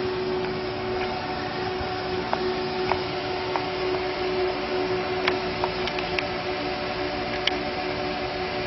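A small machine running with a steady hum at several fixed pitches over a hiss, with scattered faint clicks.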